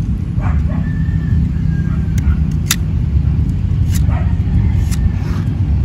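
Snap-off utility cutter blade scraping the cut top of a bougainvillea rootstock stem to clean the cut surface, with soft scrapes and a few sharp clicks. Under it runs a steady low rumble, the loudest sound.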